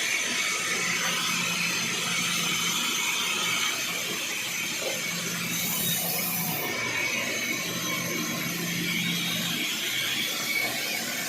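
Sawmill machinery running: a steady hiss with a low hum that swells and fades three times.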